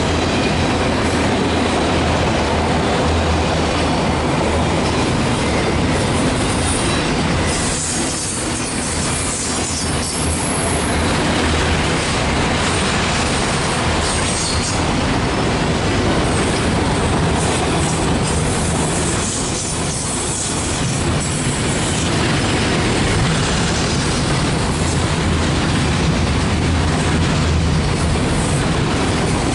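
Loaded autorack freight cars rolling past: a steady loud rumble and clatter of steel wheels on rail, with high wheel squeal coming in about a third of the way through.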